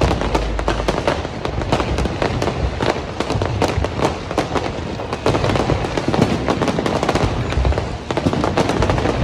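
Aerial fireworks display: a continuous dense crackle of many quick pops and bangs, with no break.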